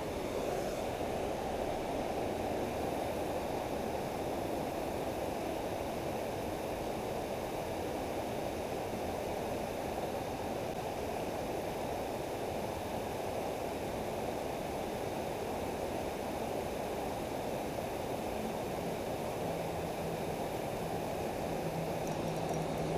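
Steady rushing of creek water running over rocks in a shallow riffle.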